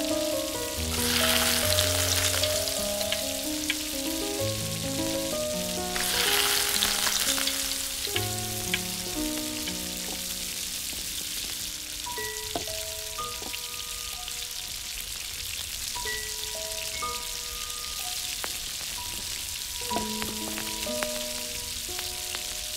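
Hot oil sizzling and crackling in a small iron wok, with two louder surges of sizzling about a second in and again around six seconds in, over a soft background melody.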